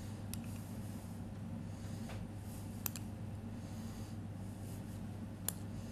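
Quiet room tone with a steady low hum, broken by three light clicks of a metal spoon against a small glass bowl as dressing is spooned out over a salad.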